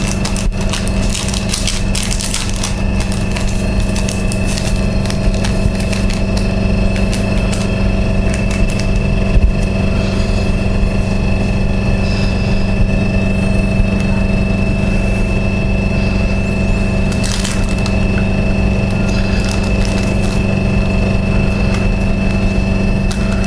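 A loud steady mechanical hum with several constant tones, its source unseen. Over it come soft crackling and crinkling from hands crumbling dry herb and rolling it between the fingers, busiest in the first half and again briefly later.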